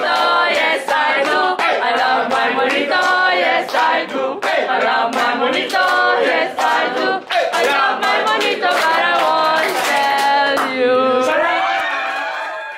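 Several voices singing together, loud and lively, with sharp clap-like hits throughout; the singing tails off near the end.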